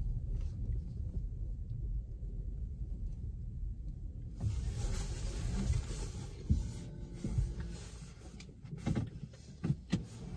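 Low rumble of a car rolling slowly through a concrete multi-storey car park, with a few dull thumps in the second half.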